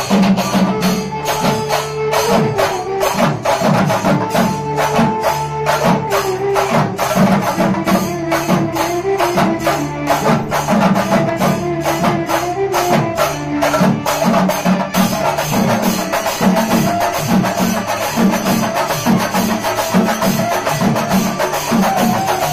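Shingari melam chenda drums, struck with sticks, playing a fast, even beat, with an amplified violin carrying a gliding melody over steady keyboard backing tones. The sound grows fuller about fifteen seconds in.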